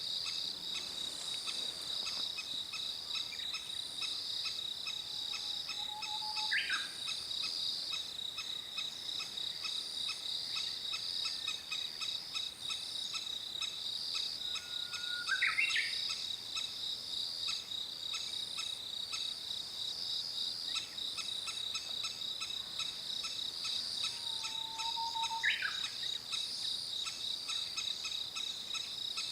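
Crested kingfisher calling three short, sharp calls about nine seconds apart: an adult holding food, calling to coax its nearly fledged chicks to the nest-hole entrance. Insects chirp steadily and rhythmically throughout.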